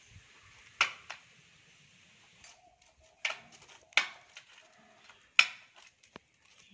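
Steel E and I laminations of a step-up transformer core being worked loose from the stack, giving about six sharp metallic clicks and clinks at irregular intervals.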